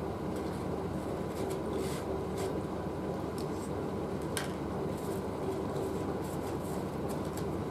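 Steady background hum and rumble, like a fan or cooler running, with a faint steady drone. A few faint light ticks and rustles from fingers handling food on a leaf plate, one a little sharper about four and a half seconds in.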